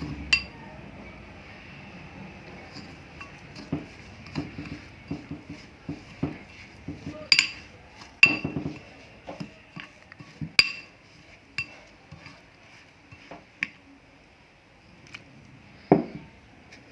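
A spoon stirring semolina and curd in a cut-glass bowl, knocking and clinking against the glass at irregular intervals, with a few louder clinks about seven, eight and ten seconds in and near the end.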